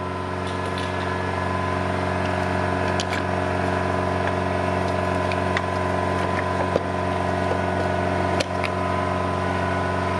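A steady machine hum with a low drone runs throughout, and a few sharp metallic clinks of hand tools are heard over it.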